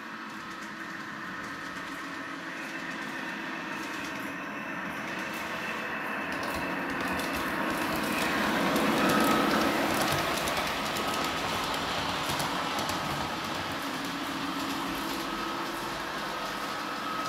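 Large-scale model train, a red DR 'Ludmilla' diesel locomotive, running on its track: a steady whirr of motor and wheels on the rails that grows louder as it approaches, peaks as it passes close about nine seconds in, then fades a little.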